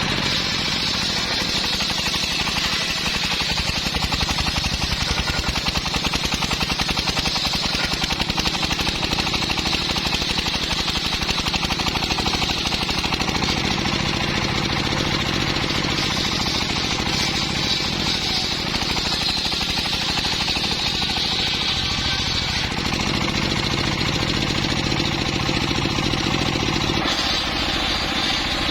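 Engine-driven saw of a portable sawmill running steadily as it cuts timber, the engine pulsing rapidly under a high whine from the blade in the wood. The sound shifts a little twice in the later part.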